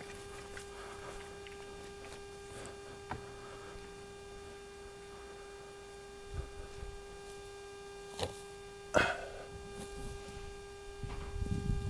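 A steady faint hum with even overtones, like mains or electrical hum, broken by a few faint knocks and scrapes. A louder low, uneven noise builds near the end.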